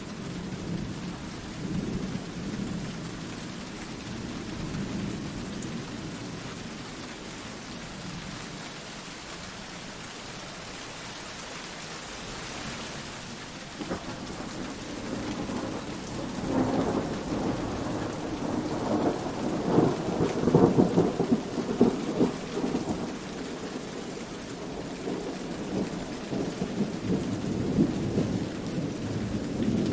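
Steady rain falling, with rolling thunder. A long rumble swells about halfway through and is loudest a few seconds later.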